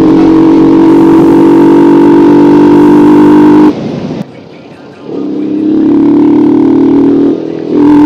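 Yamaha R15 V2's single-cylinder engine running at steady revs, very loud; the sound drops sharply about four seconds in, comes back a second later, and dips briefly once more near the end.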